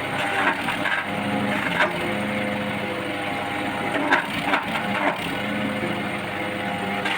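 Engine-driven wood chipper running steadily, with several sharp cracks and snaps as wood is fed in and chipped.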